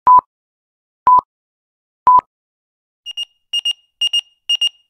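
Film-leader countdown beeps: three short electronic beeps of the same pitch, one a second. About three seconds in they give way to faster, higher electronic double beeps, four pairs about half a second apart.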